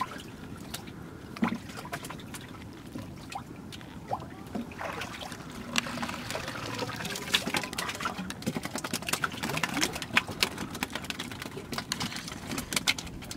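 Water trickling and splashing as a bamboo pole and a paddle push a wooden boat along, with many small drips and splashes that grow busier about five seconds in.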